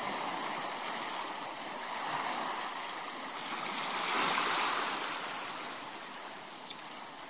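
Steady rush of water, swelling to its loudest about four seconds in and then easing off.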